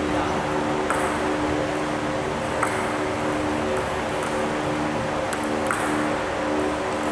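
A few scattered light ticks of table tennis balls striking tables and bats, over a steady hum.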